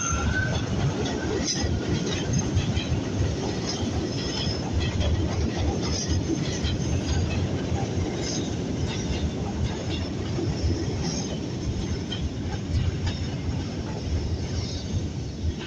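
R68 subway train rolling past on elevated track: a steady rumble of steel wheels on rail, with scattered short high squeals. The sound eases off near the end as the last car goes by.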